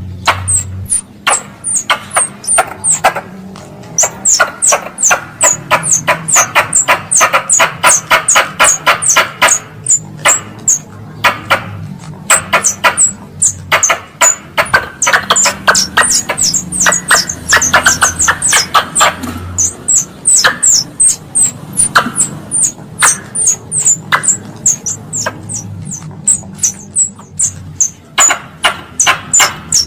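Wild squirrel calls used as a hunting lure. They come as quick runs of short, high, falling chirps, with bouts of fast, dense chattering clicks.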